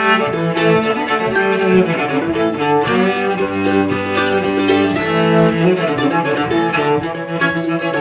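Cello and mandolin duet playing a crooked old-time fiddle tune: the cello bows the melody fiddle-style while the mandolin picks along. The cello holds one long low note about halfway through.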